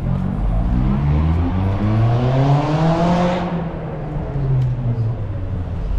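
A motor vehicle accelerating past in street traffic, its engine note climbing for about three seconds, then passing and fading.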